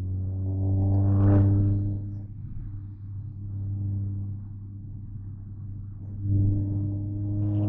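Volkswagen Jetta 2.0 TSI's turbocharged four-cylinder engine and exhaust rumbling steadily as it drives. The rumble swells louder under throttle about a second in, eases, and swells again near the end.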